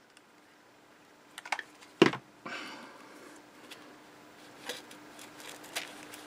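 Handling sounds while fitting a hot-glued card doorway piece: a sharp knock about two seconds in as the hot glue gun is set down on the cutting mat, then a short rustle and a few light taps as the piece is pressed onto the foam and MDF base.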